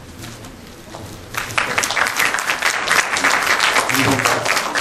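Audience applauding, the clapping building up about a second in.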